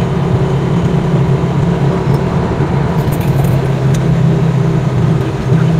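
Motor vehicle's engine running steadily as it drives along, a constant low hum with a few light rattles around the middle.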